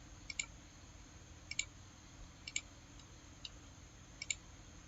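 Computer mouse clicking: five short, sharp clicks, most of them quick pairs, about once a second.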